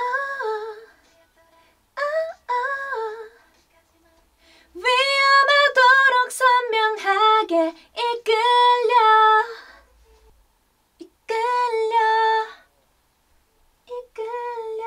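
A woman singing vocal takes without audible backing: two short phrases, then a longer phrase of about five seconds with moving pitch, then two more short phrases, with near silence between them.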